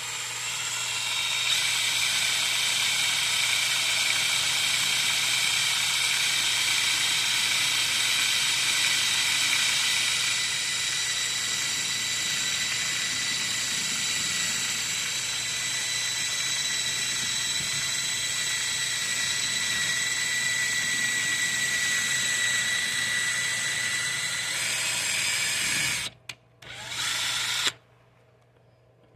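Power drill running steadily with a high whine while it bores an air hole through an RC beadlock wheel. It stops near the end, runs once more briefly, then cuts off.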